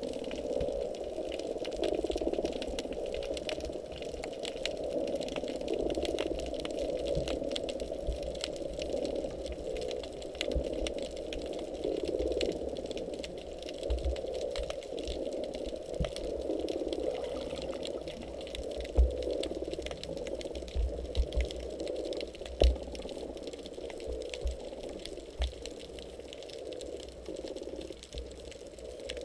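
Muffled underwater wash heard through a camera's waterproof housing, swelling and easing every few seconds. Dull low thumps come now and then in the second half.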